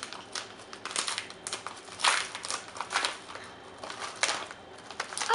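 Packaging being opened by hand: irregular rustling and crinkling of a mailer, with a few louder rustles about two seconds in.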